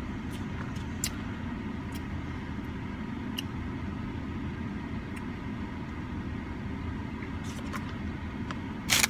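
Steady low rumble of a car idling, heard inside the cabin, with a few faint clicks from a long spoon against a paper cup and a brief loud rustle near the end.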